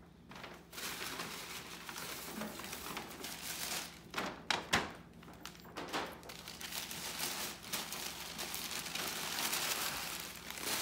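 Paper bags and wrapping paper rustling and crinkling as candle jars are pulled out and unwrapped, with a few sharper crackles about four to five seconds in.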